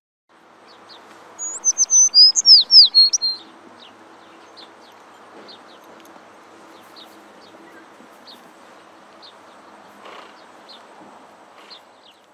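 Small birds chirping: a loud run of quick, falling chirps about two seconds in, then only sparse faint chirps over a soft, steady background rush.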